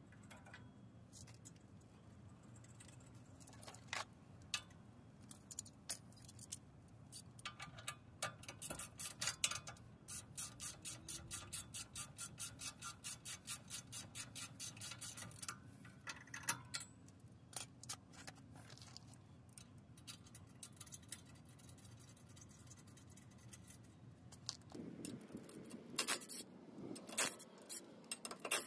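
Hand ratchet wrench clicking at about three clicks a second for several seconds on the front suspension of a Toyota Tacoma. Scattered metallic clinks of tools come before and after it.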